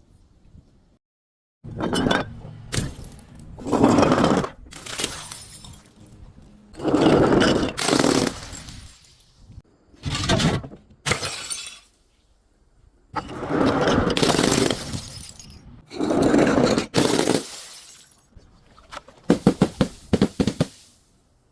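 Glass bottles being crushed and shattering in a series of separate breaking bursts with short pauses between them, ending in a quick run of sharp cracks.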